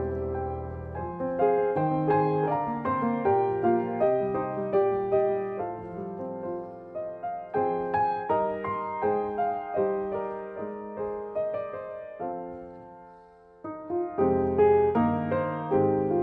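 Background music: a gentle piano melody of many struck notes, fading briefly about three-quarters of the way through before picking up again.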